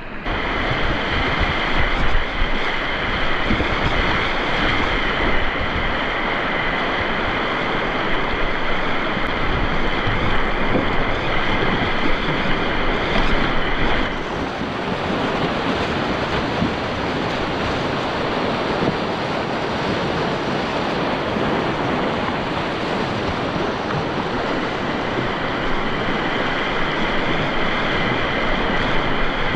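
Whitewater rapids rushing in a steady, loud wash of noise. It thins a little about halfway through and builds again near the end.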